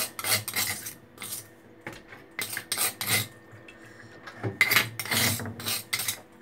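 An aluminium pot of raw chicken pieces being handled: irregular scraping, rubbing and knocking of the metal pot, busiest about halfway through.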